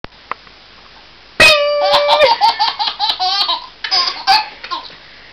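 A single ringing electronic-sounding note starts suddenly about a second and a half in and holds for nearly a second. Right after it, a baby laughs in quick repeated bursts for about two and a half seconds.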